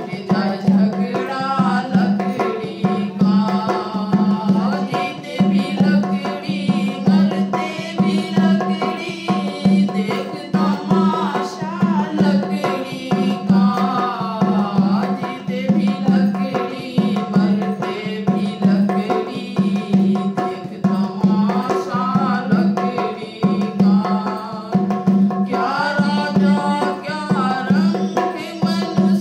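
A woman sings a bhajan while playing a dholak. The drum's deep bass strokes pulse in a steady rhythm under her voice.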